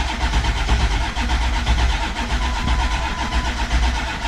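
Ford 7.3-litre diesel V8 cranking on its starter in an even, steady rhythm without firing. The truck was run out of diesel and the fuel system has not yet primed.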